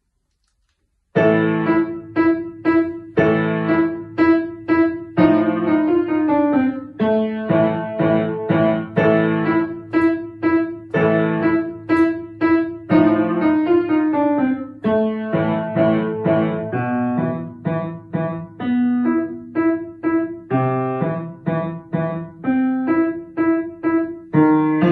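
Kawai upright piano played by a young child: after a second or so of silence a piece begins, with steady, rhythmic chords over a repeated low note.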